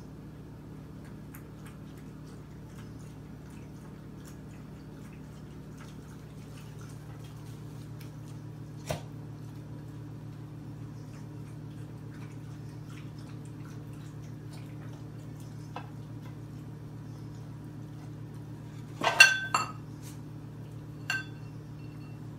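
Pet food dishes clinking as a cat and a dog eat and nose at them: one sharp clink about nine seconds in, then a quick cluster of loud clinks near the end and one more shortly after, over a steady low hum.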